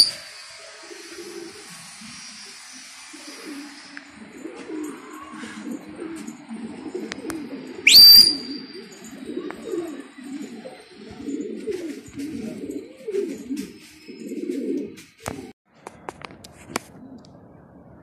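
Pigeons cooing on and off, with one loud whistle about eight seconds in that rises sharply and then holds before fading. A few faint knocks come near the end.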